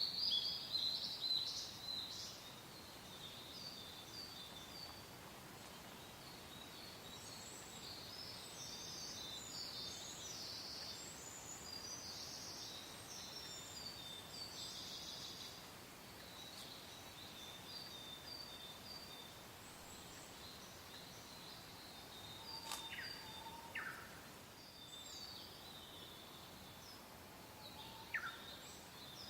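Small birds chirping and trilling, many short high calls in quick succession, busiest in the first half with a louder burst at the start, over a soft steady hiss of wind.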